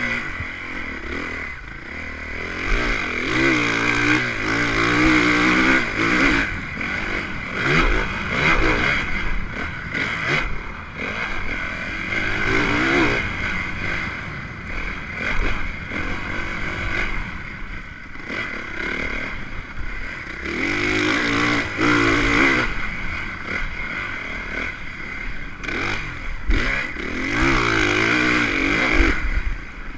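Motocross bike engine heard from the onboard camera, revving hard and easing off again and again as it is ridden around the track, with several rising surges of throttle a few seconds apart.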